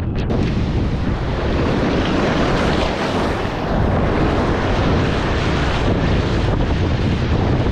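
Strong wind buffeting the microphone over the rush of heavy surf breaking on rocks; the noise brightens sharply just after the start and stays dense and loud.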